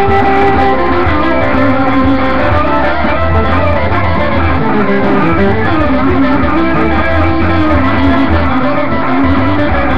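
Electric guitar played along to a loud recorded band track, with a strong steady bass line under shifting guitar notes.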